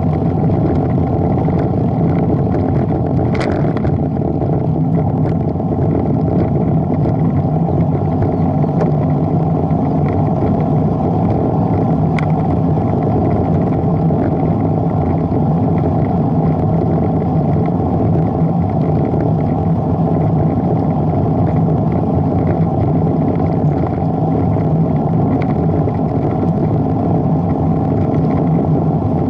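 Steady rush of wind buffeting the camera microphone, mixed with tyre and road noise, while riding a bicycle along a road at speed.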